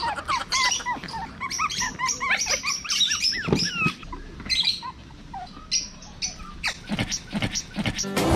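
Five-week-old Pomeranian puppies whimpering and squeaking in many short, high cries that rise and fall in pitch, one after another.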